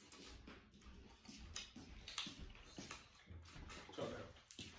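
Close-up eating sounds of crab legs in sauce: biting and sucking meat from the shells, with irregular small clicks and crackles of shell and wet mouth sounds, a louder one about four seconds in.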